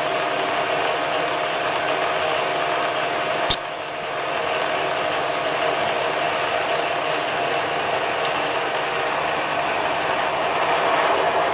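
1-inch annular cutter on a pedestal drill cutting through 5/8-inch A-36 steel plate at 150 rpm under power feed: a steady grinding, chattering cut with a steady tone over it, swelling slightly near the end. A single sharp click about three and a half seconds in.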